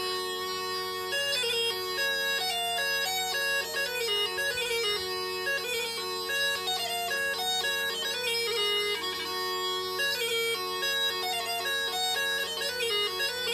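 Antique French musette, a small bellows-blown baroque bagpipe with ivory and silver mounts, playing a tune on its chanter over steady drones. The drones sound alone for about the first second before the melody comes in.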